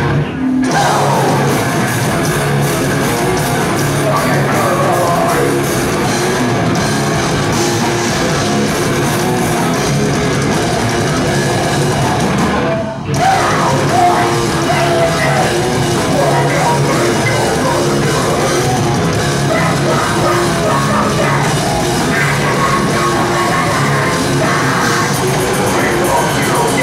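Heavy metal band playing live at full volume: distorted electric guitars, bass and drums, with shouted vocals. The music stops for a moment about halfway through, then comes straight back in.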